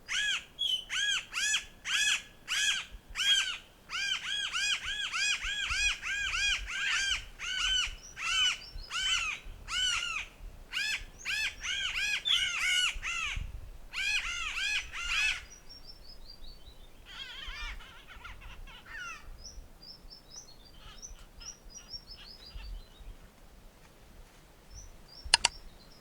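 Mariana crow calling: a rapid run of short, arched calls, two or three a second, for about fifteen seconds. This is followed by a fainter series of high, falling notes, and a couple of sharp clicks near the end.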